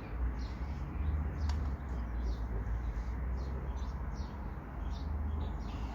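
Small birds chirping repeatedly in short high calls, over a steady low rumble of wind on the microphone.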